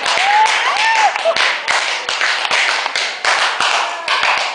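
People clapping together in a steady rhythm, about four claps a second, with a voice calling out briefly near the start.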